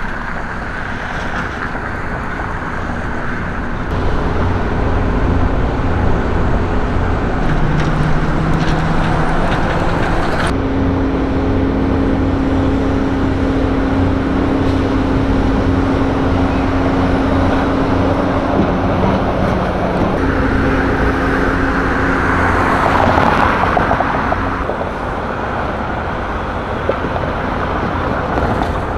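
Road traffic on a busy street: cars and trucks driving past with a steady engine hum, and one vehicle passing louder about three quarters of the way through.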